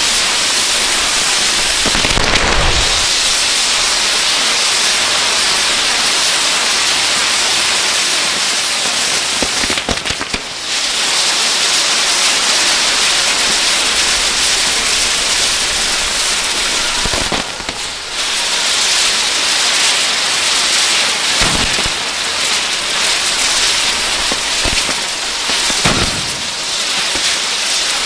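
Ground fireworks burning: a steady, dense hissing crackle, broken by several deeper thumps a few seconds apart.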